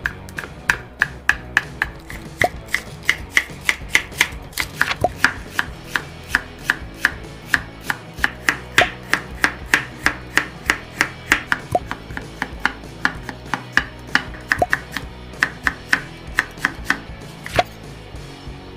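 Kitchen knife chopping perilla leaves, carrot and sea snails on a wooden cutting board: quick, evenly spaced knife strokes, about three a second, that stop shortly before the end.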